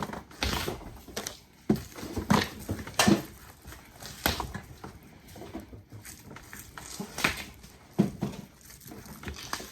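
Hard plastic sheathing being pulled and peeled off thick 4/0 copper cable by hand: irregular crackles and rips with several sharper knocks as the cable is worked.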